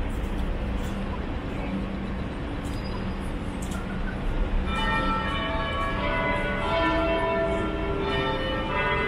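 Bells chiming in a sequence of different pitches, starting about halfway through and ringing over one another, over a steady background hubbub.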